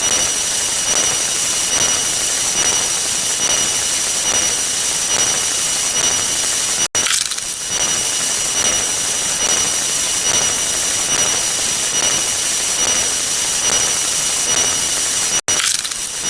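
A dense wall of overlapping, rapidly retriggered sound effects that has blurred into a harsh, steady noise with two thin high whistling tones over it. It cuts out for an instant about seven seconds in and again near the end.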